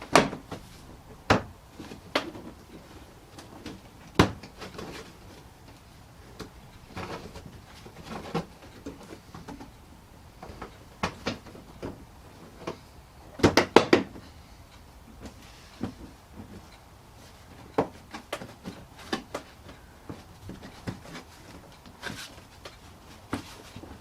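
Scattered clicks and knocks of hand tools and bolts while a plastic car bumper cover is being refitted, with a quick run of knocks about halfway through.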